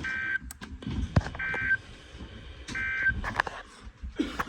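Emergency Alert System end-of-message data bursts: three short bursts of two-tone digital warble, each about a third of a second long and about 1.4 s apart, over crackling radio static with scattered clicks. The bursts signal the end of the alert.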